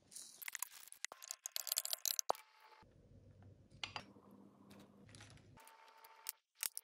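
Light clicks, clinks and scraping of kitchen utensils against a small glass bowl while a herb-and-olive-oil marinade is made. The clicks come in a quick cluster over the first two seconds or so, then a few scattered ones, with a faint low hum for a few seconds in the middle.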